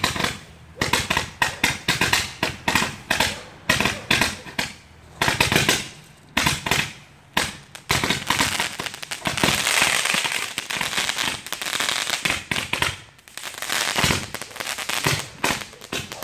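Ground firework shooting a tall column of sparks: fast crackling pops, then a few seconds of continuous hissing spray from about halfway in, and more pops near the end.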